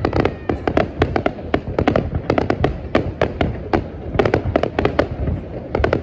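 Aerial fireworks display: a dense, continuous run of sharp bangs, several a second, over a steady low rumble.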